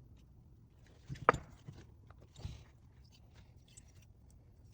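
Hand tools working on a small engine's fasteners: a sharp metal click or knock about a second in, a short scraping rustle about halfway through, and a few faint ticks.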